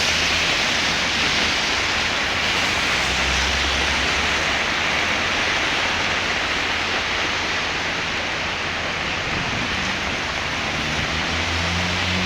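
Heavy rain falling in a steady, dense hiss, with a faint low rumble twice beneath it.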